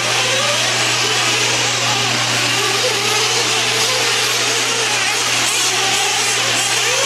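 Several 1/8-scale nitro truggy engines running at high revs on the track, their whine rising and falling as the trucks accelerate and brake, with a steady low hum underneath.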